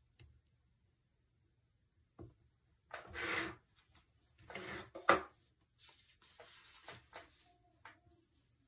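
Hands rubbing and sliding over paper planner pages and stickers: a few short rustling rubs, loudest about three seconds in and a sharp scrape just after five seconds, with softer rustles after.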